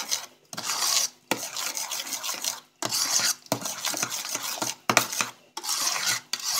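A metal utensil briskly stirring sour cream and sugar in an enamel bowl, scraping against the bowl in runs of rapid strokes broken by short pauses.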